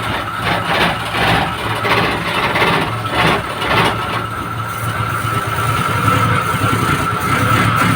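Suzuki F6A three-cylinder engine idling while its distributor is turned to advance the ignition timing. The idle evens out with no hiccuping, and a steady high whine comes in about halfway through.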